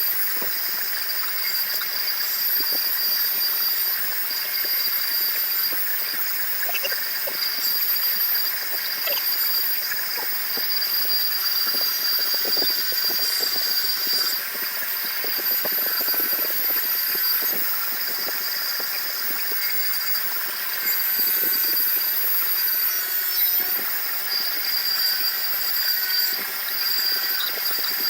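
A power tool running steadily with a high whine, with short scrapes and knocks from the work against it, mostly in the middle stretch.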